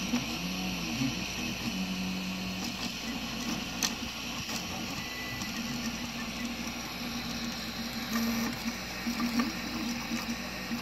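3D printer at work: its stepper motors whine in short, shifting tones as the print head makes quick back-and-forth moves laying down plastic, over the steady hiss of the cooling fans. One sharp click about four seconds in.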